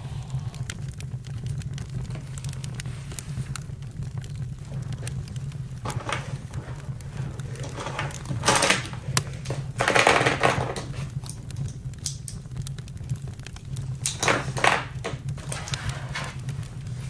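Campfire crackling: a steady low rumble under scattered sharp pops and snaps, with a few louder bursts of crackle about halfway through and again near the end.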